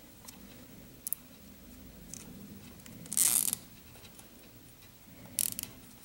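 Nylon zip tie being threaded and pulled tight around a pair of wires, giving a short ratcheting zip about three seconds in and a briefer one near the end, with a couple of small clicks about a second in.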